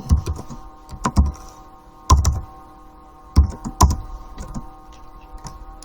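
Computer keyboard and clicks: a handful of separate, irregularly spaced keystrokes with dull knocks, as thickness values and commands are entered in SketchUp. A faint steady hum of tones sits underneath.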